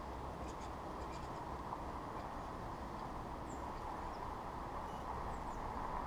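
Steady, even hum of distant city traffic, with a few faint, short, high bird chirps scattered through it.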